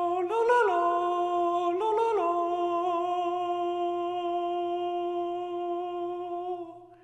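One long hummed note held at a steady pitch, rising briefly in pitch twice, about half a second and two seconds in, then fading out near the end.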